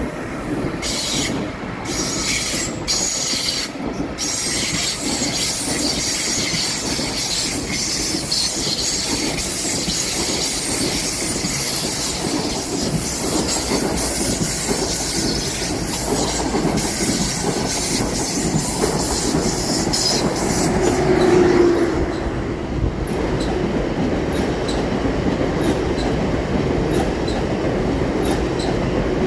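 ICE high-speed train's wheels squealing as it rolls slowly through the station approach. A steady rumble runs underneath the squeal, with a brief louder tone about three-quarters of the way through and a regular clicking of wheels over rail joints near the end.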